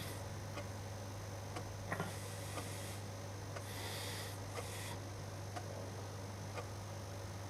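Soft breathing of a sleeping man in a pause between snores, with faint hisses of breath about two seconds in and again around four seconds, over a steady low hum and a few faint ticks.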